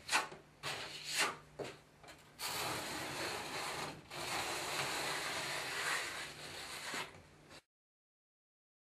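A trowel scrapes thinset mortar onto cement backer board in a few short strokes. Then comes a longer, steady rubbing as mesh tape is pressed into the wet mortar in the corner. The sound cuts off abruptly near the end.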